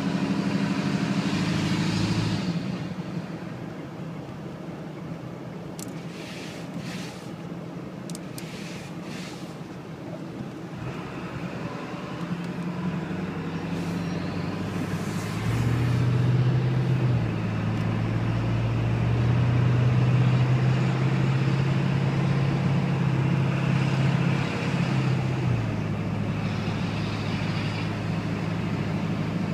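1997 Ford F-250's 7.3 L Powerstroke V8 turbodiesel running cold, with the turbo noise the owner calls loud. The engine drops to a quieter run after a couple of seconds, then grows louder to a strong steady drone about halfway through, which falls back near the end.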